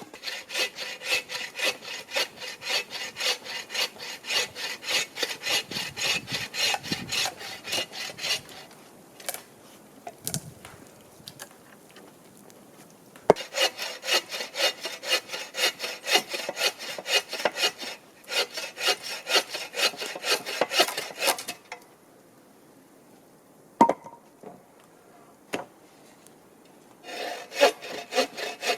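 Hand saw cutting hardwood firewood in quick back-and-forth strokes, in three runs of sawing with pauses between. A few single knocks sound in the pauses.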